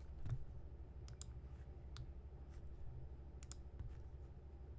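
A few scattered, faint clicks of computer input while browsing, over a low steady hum.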